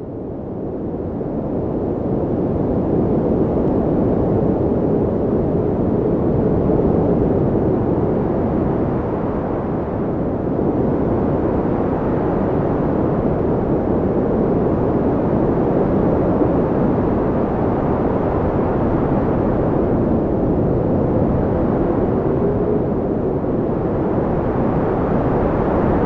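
Blizzard wind: a steady, deep rush of cold wind that swells in over the first few seconds, with a faint whistle rising and falling now and then.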